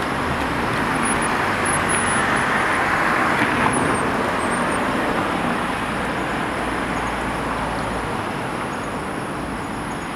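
Road traffic noise: a steady rush of passing vehicles, swelling about two seconds in and slowly easing off.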